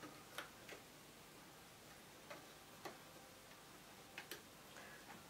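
A handful of faint, irregular clicks of a metal hook tapping and scraping the plastic pegs of a rubber-band loom as bands are looped over.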